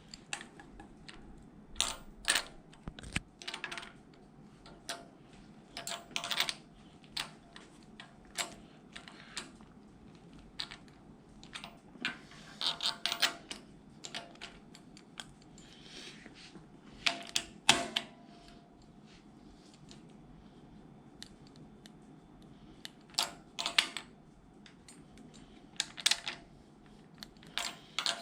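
Scattered sharp metal clicks and clinks, some in quick clusters, as rocker arm studs, pushrod guide plates and hand tools are handled and set into a small-block Chevy cylinder head.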